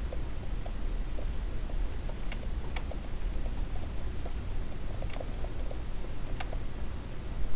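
Light computer mouse and keyboard clicks at irregular intervals, a few a second, over a steady low hum.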